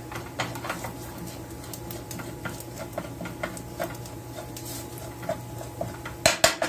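Metal spoon scraping and clicking in a small nonstick skillet, stirring crumbled sausage and flour as it browns for gravy. Two louder knocks come near the end.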